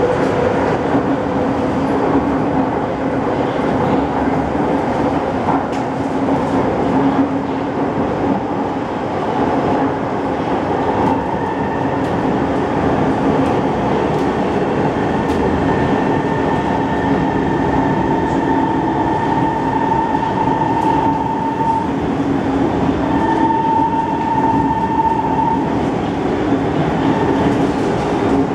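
Interior of an SMRT C151 metro car running at speed: a steady rumble of wheels on rail and the car body. A steady high whine joins it about a third of the way in, drops out, and returns briefly a little later.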